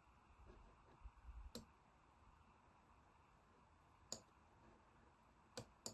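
Four faint, sharp computer mouse clicks, spaced irregularly over quiet room tone, with two of them close together near the end.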